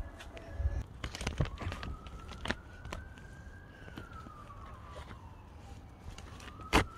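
A faint emergency-vehicle siren wailing, its pitch slowly rising, then falling over a few seconds, then rising again. Scattered rustles and knocks of the phone brushing through branches run under it, with the loudest sharp knock near the end.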